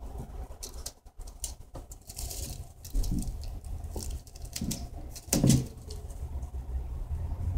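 A three-month-old kitten pawing and scratching at a plastic trash-can liner: scattered rustles and scratches, with a louder bump about five and a half seconds in.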